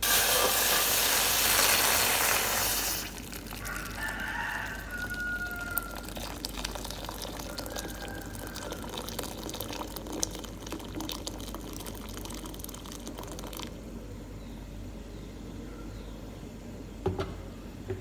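Water poured from a jug into an empty stainless steel pot: a loud splashing rush as it first strikes the bare metal bottom, then a softer steady pour into the filling pot, which stops about 14 s in. A couple of knocks near the end.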